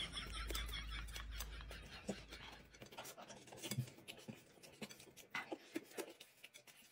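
Faint, scattered clicks and scratches of eating and handling food and dishes at a table, over a low hum that stops about three seconds in.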